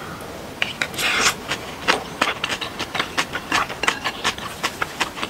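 Close-up eating sounds of a mouthful of jjajang ramen noodles being chewed: many small, irregular wet mouth clicks, with a short slurp about a second in.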